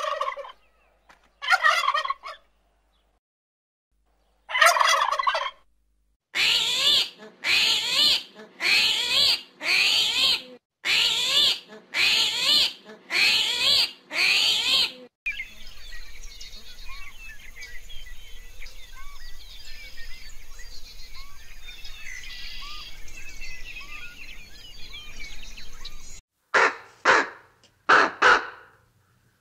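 Loud animal calls: a few separate calls, then nine in an even series with cut edges. After that comes a softer stretch of many small bird chirps, and near the end three more loud calls.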